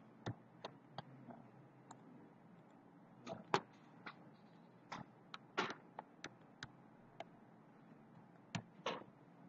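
Computer keyboard typing: faint, irregular key clicks, some in quick runs and some with pauses of a second or more between, over a faint low hum.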